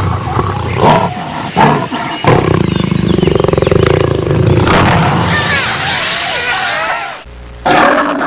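Wild animal calls: a few short cries, then a long, low, pulsing roar lasting about three seconds, with quick high chirps over its later part. The sound cuts off abruptly about seven seconds in and a different sound begins.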